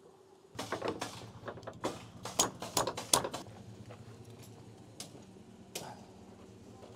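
Wooden 2x6 framing boards knocking and clattering against each other as they are handled and unloaded: a quick run of sharp knocks for about two and a half seconds, then two single knocks near the end, over a steady low hum.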